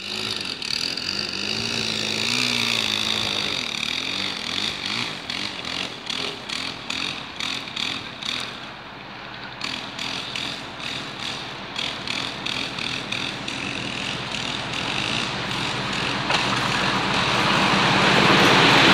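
MÁV class M41 (418) diesel locomotive hauling passenger coaches, approaching and drawing level, its engine and train noise growing steadily louder toward the end. Uneven pulsing noise is heard in the first half.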